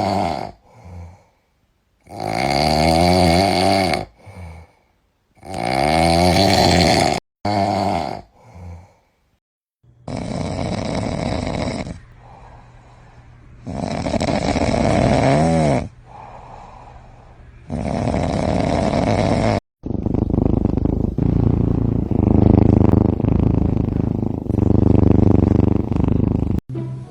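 Sleeping domestic cats snoring, one clip after another: loud, drawn-out snores about every three to four seconds, each lasting one to two seconds, with silent pauses between them. About twenty seconds in, the sound becomes steadier and nearly unbroken.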